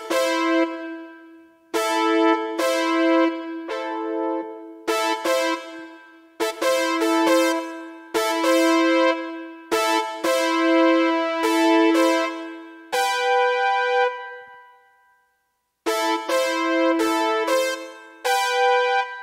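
Yamaha Genos arranger keyboard playing an 80s-style synth-brass riff, each melody note doubled a third and a sixth below, in short repeated phrases. The phrase breaks off about two-thirds of the way through and starts again after a brief pause.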